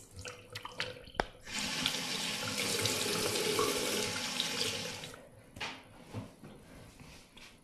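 Bathroom tap running into a sink for about three seconds, then shut off. A few light knocks and clicks come before and after it.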